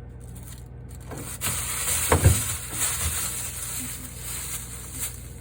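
Food containers being moved about in a refrigerator: rustling handling noise with a couple of knocks about two seconds in, over a steady low hum.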